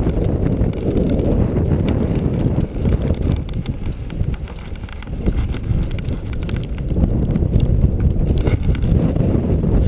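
Strong gusting wind buffeting the microphone, a loud low rumble that eases briefly around the middle and builds again.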